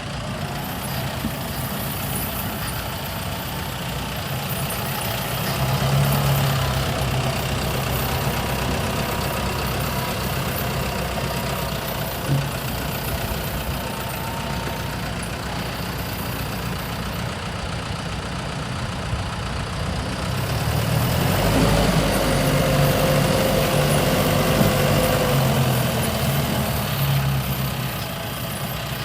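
John Deere 6115D tractor's diesel engine running, mostly at a steady idle, growing louder twice, briefly early on and for several seconds in the last third. A single sharp knock is heard a little before the middle.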